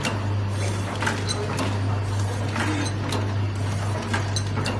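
Automatic granule sugar stick packing machine running: a steady motor hum with repeated sharp clicks and clacks from its mechanism.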